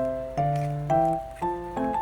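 Background music: a gentle keyboard melody with chords, a new note or chord starting about every half second.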